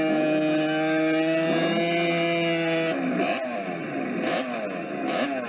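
A sprint motorcycle's engine held at high revs, a steady note with a slightly falling pitch. About three seconds in it gives way to a motorcycle engine being revved up and down in repeated throttle blips, about one a second, as it waits to launch.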